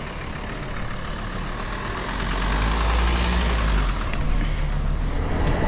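Motorcycle engine idling at a standstill, growing louder over the last few seconds.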